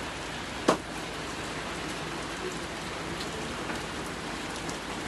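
Steady rain falling, with one sharp tap a little under a second in.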